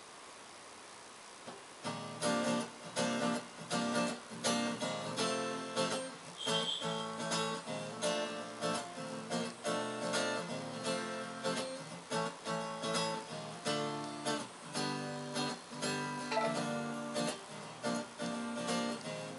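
Guild steel-string acoustic guitar strumming the intro of a song in a steady rhythm, coming in about two seconds in after a faint hiss, heard through a television's speaker.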